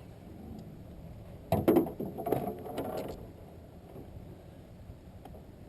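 A quick run of knocks and clatter in a fishing boat for about a second and a half, as a hooked bass is landed, over a steady low wash of wind and water.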